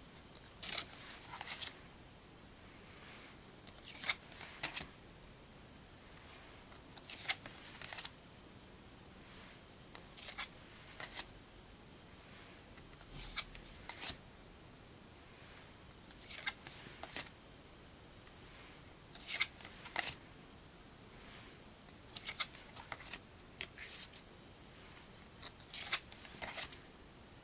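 Thick tarot cards handled one at a time as a deck is flicked through: every three seconds or so a short cluster of quick papery slides and snaps as a card is pulled off the deck and put down.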